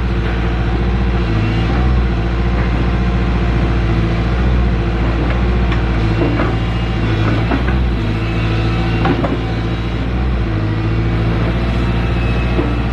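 Firewood processing machinery running steadily, a low engine-like hum that rises and falls slightly under load. A few sharp knocks come in the middle, typical of oak pieces striking the machinery.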